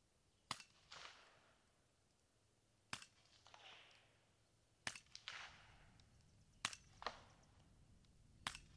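Five suppressed rifle shots, roughly two seconds apart, from a 300 Blackout AR-style rifle fired through an AB Suppressors Raptor suppressor mounted in its reflex configuration. Each sharp report is followed about half a second later by a softer, drawn-out trailing sound.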